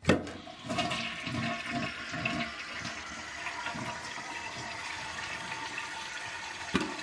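1998 Mansfield Alto toilet flushing: a sharp click of the handle at the start, then a steady rush of water emptying the tank and bowl, with another click near the end.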